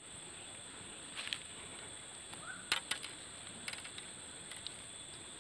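Faint, scattered light clicks and rustles of hands handling gear, over a steady faint high-pitched hiss.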